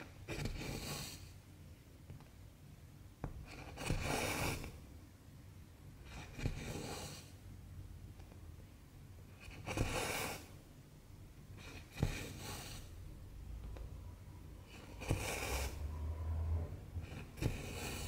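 Cross-stitch needle and cotton thread drawn through 11-count stamped cross-stitch fabric. There are seven short scratchy swishes, about one every two and a half seconds, and several of them are led by a sharp click as the needle goes through the cloth.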